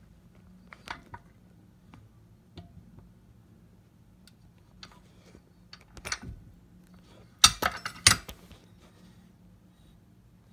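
Sparse clinks and knocks of metal orthodontic pliers and the stone model being handled on a table, with the loudest cluster of sharp clatter about seven and a half seconds in, over a faint steady hum.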